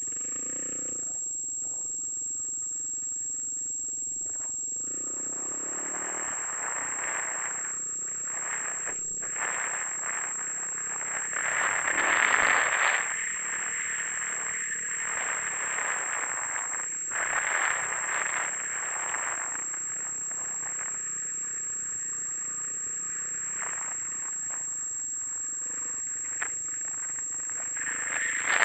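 Dual-sport motorcycle riding along a dirt road, heard mostly as wind rushing over a helmet-mounted camera's microphone, with tyres rattling on the loose gravel. The wind noise swells and fades several times, and a steady high whine sits over it.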